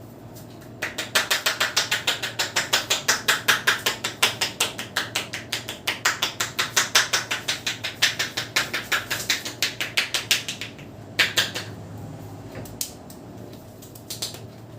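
Percussive head massage: hands striking the head in a fast, even rhythm of about five or six strokes a second for some nine seconds. A few scattered strokes follow near the end.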